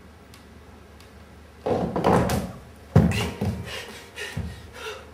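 Bodily thumps and knocks on a wooden stage floor as a dancer leaves a wooden chair: a scuffing rush about a second and a half in, a heavy thud about three seconds in, then several lighter knocks dying away.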